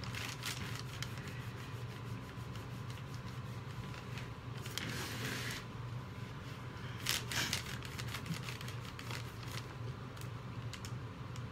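Cloth rag rubbing and wiping along the edges of a soap mold, in a few short scrubbing bursts near the start, about five seconds in and about seven seconds in, with small clicks and taps between them. A steady low hum runs underneath.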